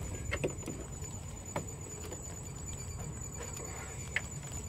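A few light, separate clicks of a 5/16 spanner working the exhaust heat shield bolts under the car, over a low steady rumble.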